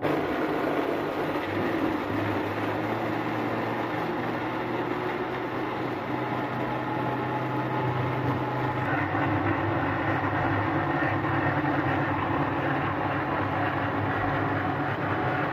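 Electric countertop blender running at steady speed, its motor whirring as the blades purée plum pieces in water into juice.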